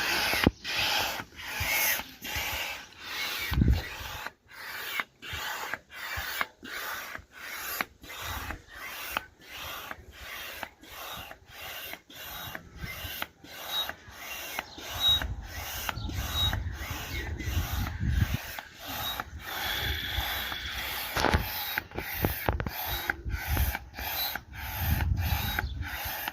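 Hand air pump being worked to inflate an inflatable tent: a steady run of rasping strokes, about two a second.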